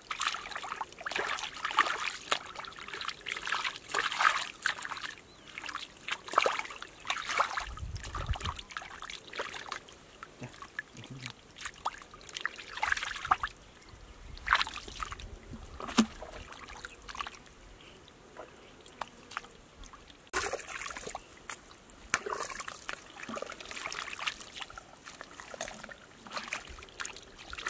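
Hands and bare feet splashing and squelching in shallow muddy water and soft mud as a man gropes for fish, in irregular sloshes and drips, with a quieter stretch a little past the middle.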